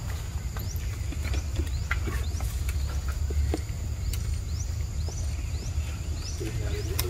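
Forest ambience: a steady high insect drone, a short rising chirp repeating roughly once a second, scattered light clicks, and a constant low rumble.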